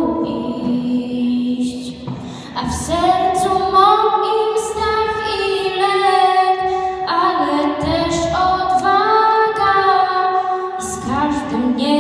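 A girl singing a slow melody solo into a microphone, in long held phrases with short breaks between them.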